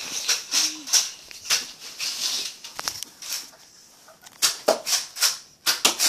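A series of short, irregular rustling scuffs, one or two a second, from the handheld phone camera being carried and handled.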